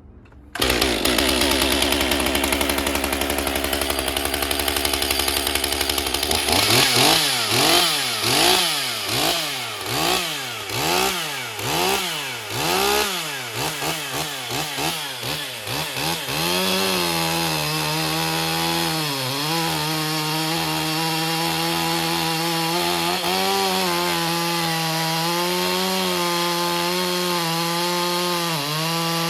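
Stihl MS 201 TC-M two-stroke top-handle chainsaw, freshly repaired after an M-Tronic no-start fault, firing and running. It starts about half a second in and runs high and loud for several seconds. It is then revved up and down about once a second for around ten seconds, then settles to a steady idle.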